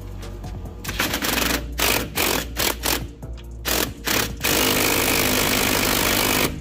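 Impact wrench hammering on a rusty sway bar end link nut in a series of short bursts, then one long continuous run; the nut doesn't come loose.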